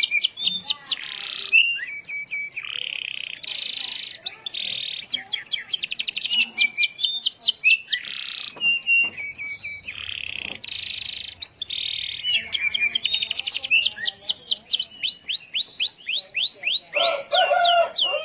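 Domestic canary singing without pause: fast runs of sharply falling notes alternate with buzzy rolls and trills.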